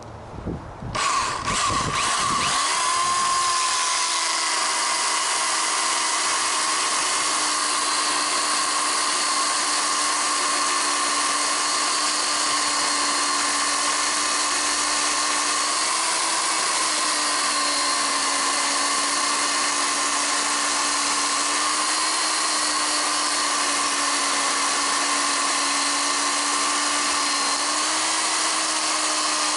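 Electric power tool switched on about a second in, then running steadily at speed with a high whine, its pitch sagging slightly now and then.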